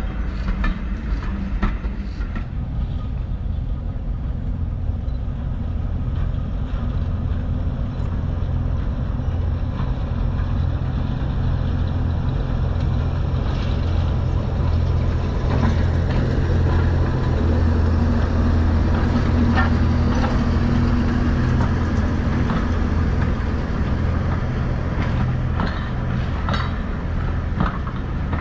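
Heritage diesel locomotive engine running under power: a deep steady drone that swells somewhat louder through the middle, with occasional short clicks.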